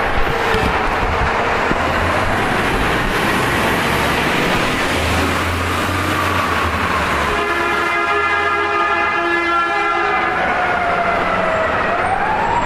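Steady city street traffic noise. A multi-tone horn sounds for about three seconds a little past halfway, and a siren in the background slowly falls and then rises in pitch near the end.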